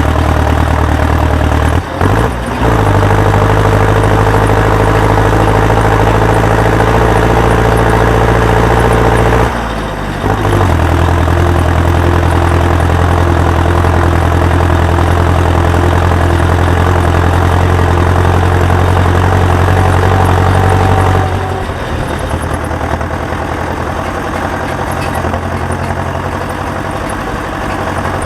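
Heavy farm machinery engine running steadily with a low drone. The sound changes abruptly about 2 and 10 seconds in and drops a little about 21 seconds in.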